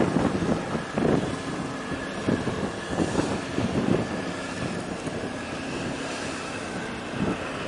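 Wind buffeting the microphone in irregular gusts, stronger in the first half, over a faint steady mechanical hum.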